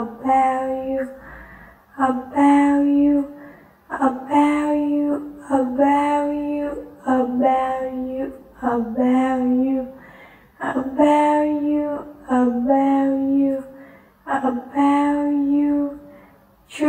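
A high voice repeating the phrase "about you" over and over in a drawn-out, sing-song delivery, each time rising into a held note, about once every two seconds.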